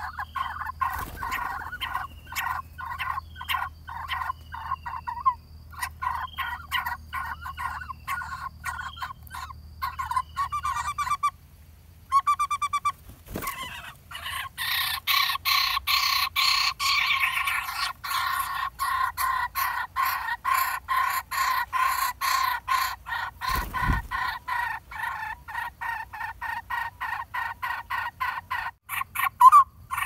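Lineated barbet nestling in a tree-hole nest begging with quick, repeated harsh calls, several a second, growing louder and denser about halfway through as the parent feeds it.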